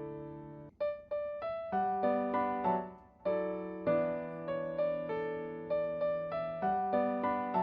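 Background music: a gentle piano melody of single struck notes and chords, each decaying after it is struck.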